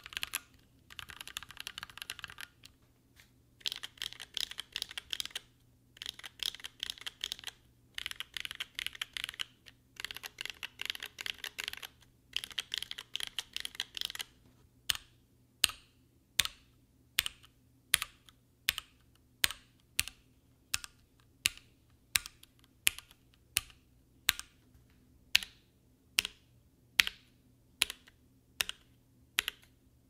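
Typing on a Keychron Q1 aluminium mechanical keyboard: first the build with lubed Gateron Phantom Red linear switches, then the stock board with Gateron Phantom Brown switches, which sounds hollow out of the box. Fast runs of typing give way, about halfway through, to single keystrokes about every three-quarters of a second.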